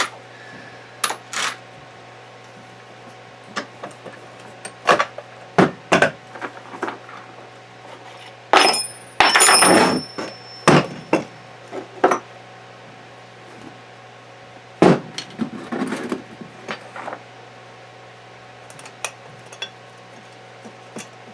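Small metal parts and hand tools clinking and clattering as a camper gearbox is taken apart, with a denser run of rattling and a brief metallic ring about halfway through. A faint steady hum lies underneath.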